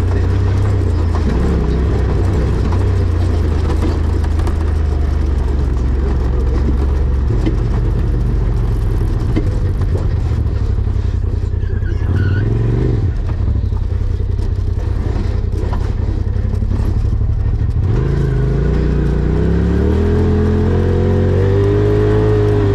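Rally car engine driven hard along a dirt track, heard from inside the cabin. Its pitch shifts briefly about halfway through, then climbs steadily near the end as the car accelerates.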